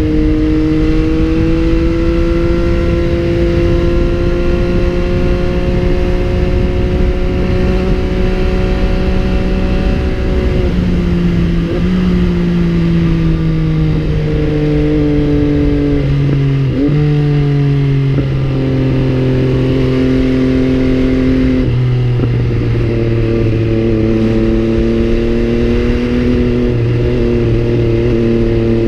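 MV Agusta Brutale 800 inline three-cylinder motorcycle engine running under way, heard from a helmet or bike-mounted camera. It holds a steady engine note for about ten seconds, then drops in pitch in steps five or six times, each with a short blip.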